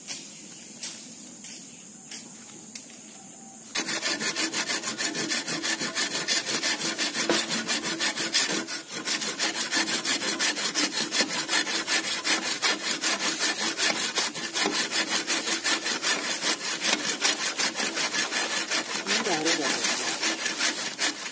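Footsteps on leaf litter, roughly one a second, over a steady high-pitched hum; then, about four seconds in, a hand saw cutting into a green bamboo culm in rapid, even back-and-forth strokes that run on without a break.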